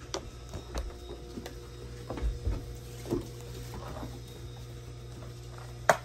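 Scattered light knocks and low thumps of footsteps and movement on a wooden porch deck, with one sharp click near the end, over a steady low hum.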